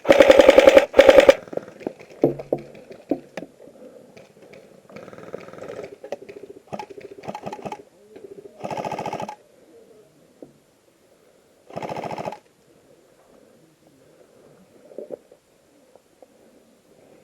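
Airsoft AKM replica firing short full-auto bursts, each a quick even rattle of shots. Two loud bursts come right at the start, with more bursts about halfway through and near the end.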